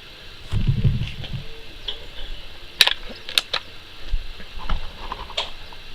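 Swiss Arms TAC-1T .177 air rifle being handled: a low rustle about half a second in, then a few sharp mechanical clicks, the loudest about halfway through and another near the end.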